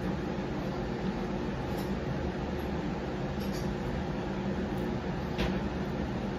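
Steady mechanical room hum, like a fan or air-conditioning unit, with a few faint short clicks, the clearest about five seconds in.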